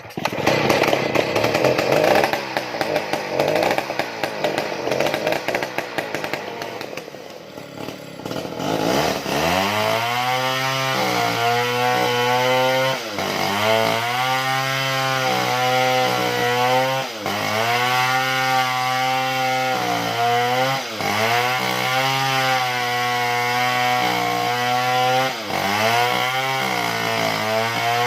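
Small two-stroke chainsaw ripping a log lengthwise, with a loud whining engine at high revs. The engine note dips and climbs back several times as it bogs under the cut and recovers.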